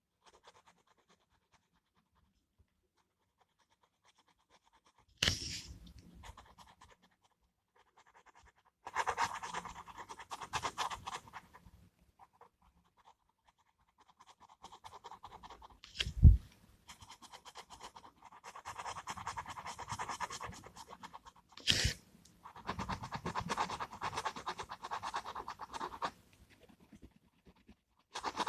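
A pen scratching on paper in several bursts of quick back-and-forth strokes, as when colouring in with a gel pen. There are a few sharp knocks, one with a dull thud about halfway through.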